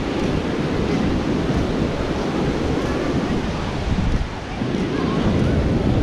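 Atlantic surf washing in, with wind buffeting the microphone. The sound dips briefly about four seconds in.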